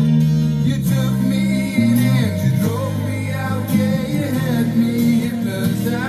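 Celestion DL4 bookshelf speakers playing a rock ballad: singing over guitar.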